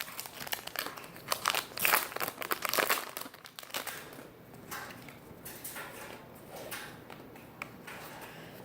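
Foil trading-card booster pack crinkling and tearing as it is opened. Sharp crackles come in the first three seconds, then softer rustling.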